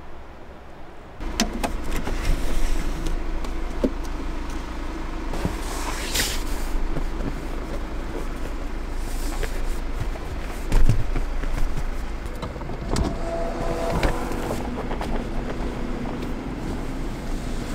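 Car noise: a steady low rumble with scattered clicks, starting suddenly about a second in.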